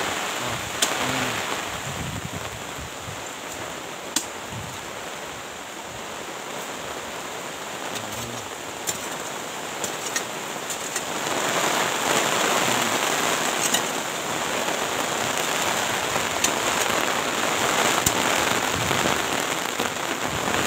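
Steady rain falling, growing heavier about halfway through, with a few sharp taps of single drops scattered through.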